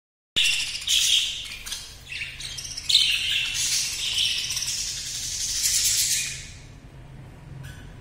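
A caged flock of budgerigars chattering with many overlapping high chirps, dropping off sharply about six and a half seconds in.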